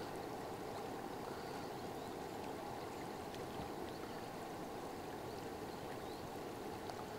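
Steady rush of fast-flowing river water, with a few faint ticks.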